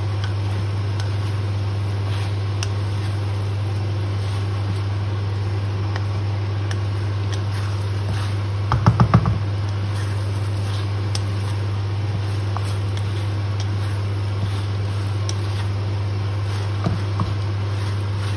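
Chili chicken being stir-fried in a wok with a wooden spatula, over a steady low hum. Light clicks of the spatula come throughout, and a quick run of about five knocks, the loudest sound, comes about nine seconds in.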